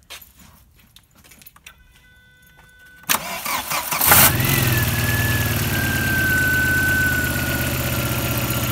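Audi A3 1.8 engine started: faint clicks and a faint tone as the ignition comes on, then the starter cranks about three seconds in. The engine catches a second later with a brief rev and settles into a steady idle with a slowly falling whine. No knock is heard now that the loose flywheel has been tightened.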